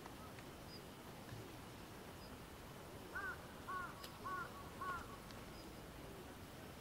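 A crow cawing four times in a row, about two caws a second, starting about three seconds in, faint over quiet outdoor background noise.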